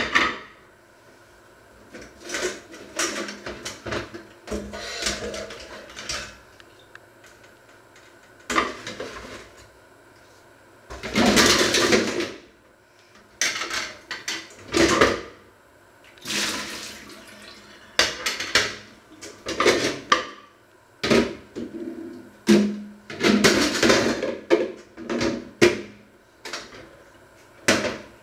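Water from a kitchen tap splashing into a steel sink in short, irregular bursts while dishes are rinsed, with a longer gush a little before the middle. Plates knock against each other now and then.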